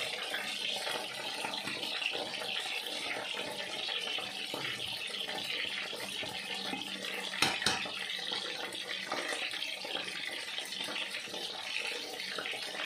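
Calamari and potato fries deep-frying in hot oil: a steady sizzle, with two sharp clicks of utensils against the pan about seven and a half seconds in.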